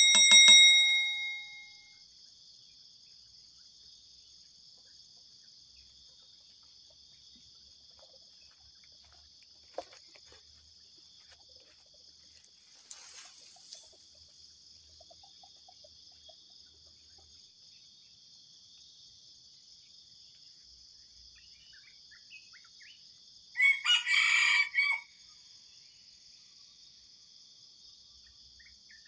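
Junglefowl crowing: a loud crow with a held final note at the start, and a second, choppier crow about 24 seconds in, over a steady high drone of insects.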